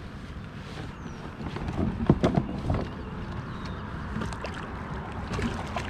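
Hooked fish splashing at the surface beside a kayak, in a loud cluster of splashes about two seconds in and a few smaller ones near the end, over a steady low background noise.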